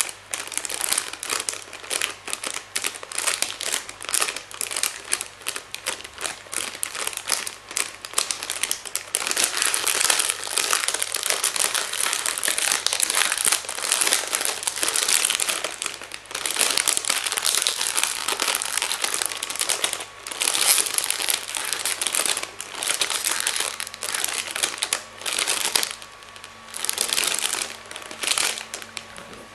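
Plastic being crinkled and crumpled by hand, dense crackling in long runs broken by short pauses.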